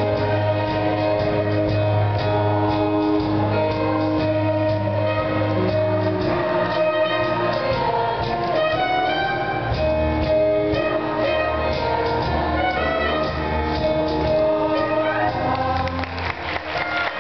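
Instrumental band music with brass playing steadily, ending near the end as audience applause takes over.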